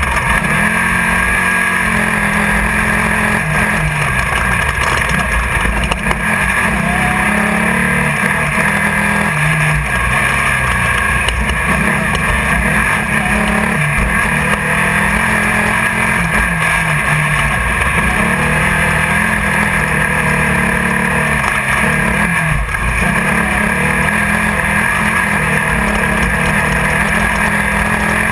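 Class 1600 off-road race car's engine heard from inside the car, running hard, with revs rising and dropping again and again through gear changes. A steady hiss runs over it.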